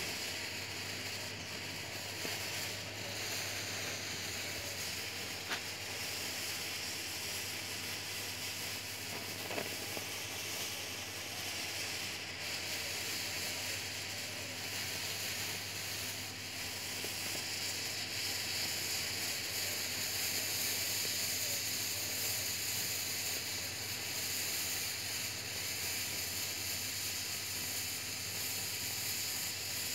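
A homemade potassium nitrate and sugar smoke bomb burning in a small tube, giving a steady hiss as it pours out thick white smoke. It grows slightly louder in the second half, with a couple of faint clicks.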